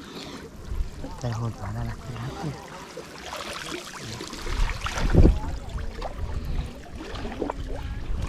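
Water sloshing and splashing as people wade through shallow water, with one louder thump about five seconds in.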